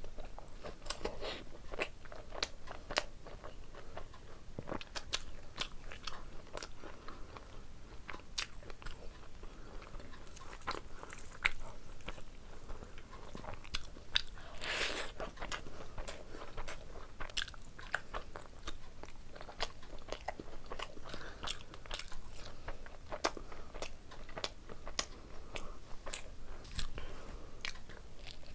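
Close-up eating sounds of a person chewing mouthfuls of boiled egg curry and rice, with many small, irregular mouth clicks and smacks. About halfway through comes a louder, rougher stretch as fingers mix rice with curry on the plate.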